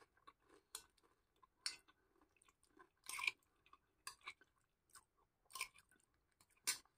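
Quiet close-up chewing of a mouthful of kupat lengko (rice cake with fried tofu and fritters in peanut sauce): scattered soft, wet mouth clicks and smacks, with a few sharper clicks about 1.5, 3 and 5.5 seconds in and near the end.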